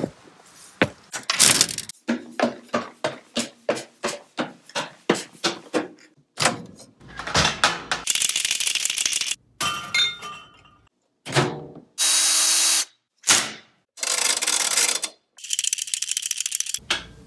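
A series of separate everyday clatters and knocks: first a run of quick sharp knocks, about two to three a second, then several short bursts of rushing or scraping noise, each cut off abruptly.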